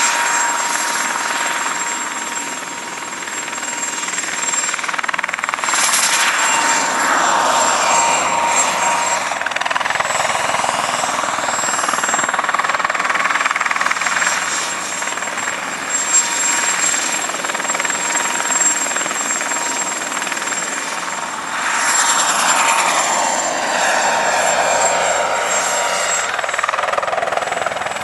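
Mosquito XET ultralight helicopter flying, its engine and rotor running steadily with a thin high whine. The sound sweeps in pitch twice, about six seconds in and again near 22 seconds, as the helicopter passes close.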